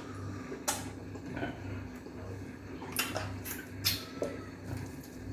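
Eating sounds close to the microphone: a handful of short, sharp clicks and clinks, about four, spaced irregularly over a low hum.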